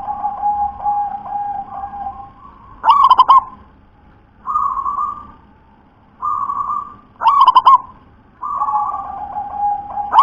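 Zebra dove (perkutut) cooing. Three times, about every four seconds, it gives a loud, rapid stuttering phrase of coos, and softer drawn-out coos fill the gaps between.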